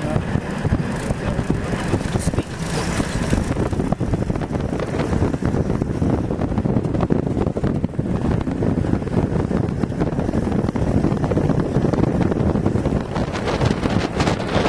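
Four-wheel-drive vehicle driving on a dirt track: steady engine and road noise, with wind buffeting the microphone held out of the window.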